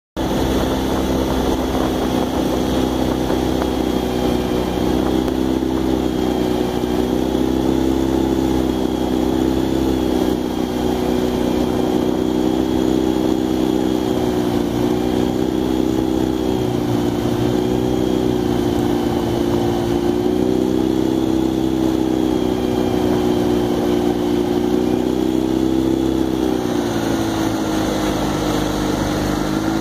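Outboard motor of a coaching launch running steadily at cruising speed, its pitch wavering slightly and dropping a little near the end.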